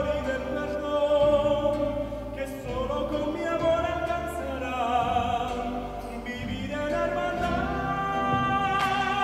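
Solo male voice singing long, held notes with vibrato, accompanied by a small guitar-like string instrument, as part of a Latin American mass setting.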